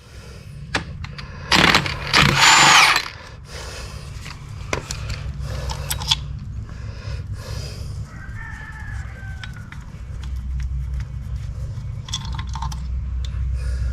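Power wrench run in short bursts, loosening the connecting-rod cap bolts on a diesel engine's crankshaft, with sharp clicks of metal tools and sockets. A steady low hum runs underneath.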